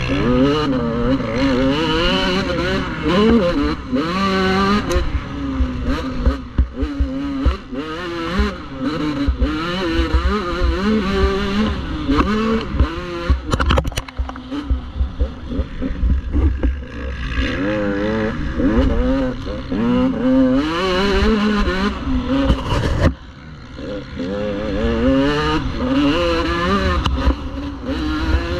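Motocross bike engine heard from on board, revving hard and falling back again and again as the rider works the throttle and gears round the track. About three-quarters of the way through, the throttle is cut briefly and the engine goes quiet, then it picks up again.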